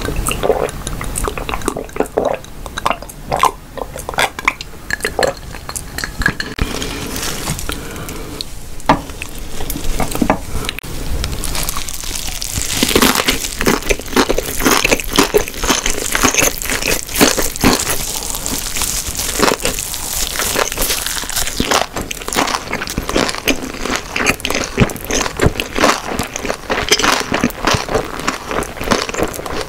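Close-miked mouth sounds: sips and swallows of water from a glass with scattered small clicks, then from about 13 seconds in biting into and chewing a seaweed-wrapped gimbap roll, with dense crunchy, wet chewing.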